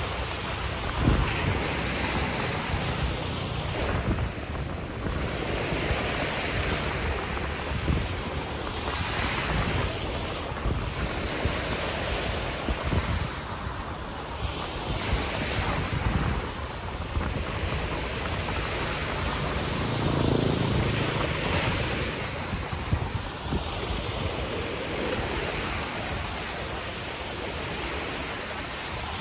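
Ocean surf breaking and washing up the beach, swelling and fading every few seconds, with wind buffeting the microphone.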